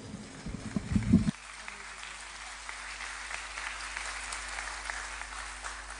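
Applause from a large seated crowd, a steady crackling hiss that stays fairly quiet throughout. A few low thumps come in the first second.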